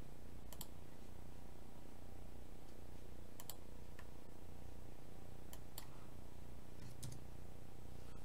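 A handful of computer mouse clicks, several in quick pairs, scattered over a low steady hum.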